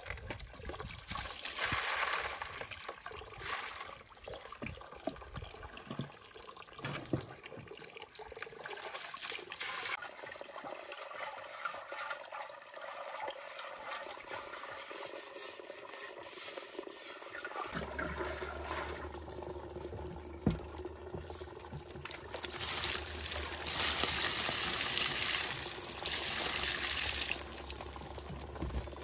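Water sloshing and splashing in a large glazed earthenware water jar as it is scooped out and scrubbed, then a louder rush of water lasting several seconds as the jar is tipped over to empty it.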